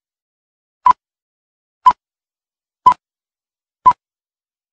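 Film-leader countdown beeps: four short beeps of one pitch, one each second, one per number as the countdown runs down to one.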